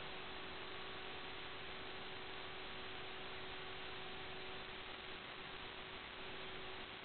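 Steady static hiss with a faint steady hum through it, the empty audio channel of an analog FPV video link. The hiss flutters slightly in loudness in the second half.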